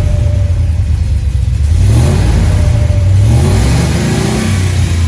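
Ram 1500's Hemi V8 with a rear-mounted turbo running through a makeshift exhaust with a deep tone, given short revs about 2 seconds in and again a little later before settling back.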